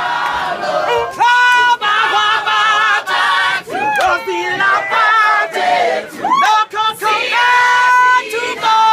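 A large group of Broadway cast members singing together without accompaniment, belting long held notes with vibrato twice, with shouts from the crowd in between.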